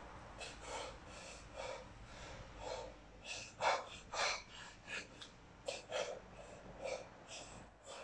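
A man's hard breathing while snatching a 32 kg kettlebell: short, sharp breaths about twice a second, in time with the reps. The loudest breaths come near the middle.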